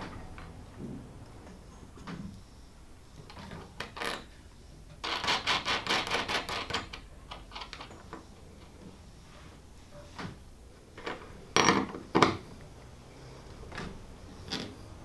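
Small metal clicks and rattles of a washer and nut being fitted onto a carriage bolt. There is a quick run of even clicks midway, then two sharp clicks near the end.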